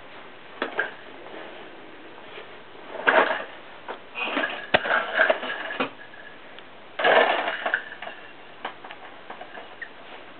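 A cat pawing at a mouse toy inside a cardboard tissue box: irregular bursts of scratching and rustling cardboard, with a few sharp taps.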